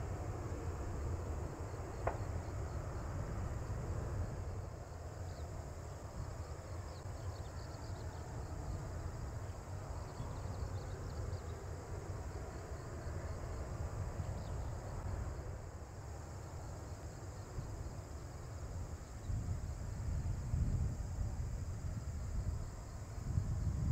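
Insects in the grass keep up a steady high-pitched chirping over a low rumble that swells near the end, with one sharp click about two seconds in.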